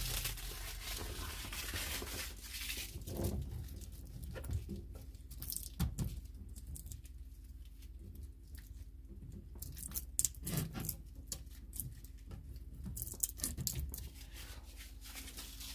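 Protective plastic film being peeled off a new fridge, heard as faint crinkling with scattered small clicks and rustles, over a low steady hum.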